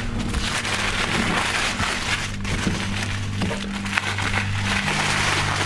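Packing material being handled and pulled away from a boxed board game: crinkling, rustling and scattered clicks, over low sustained background music notes.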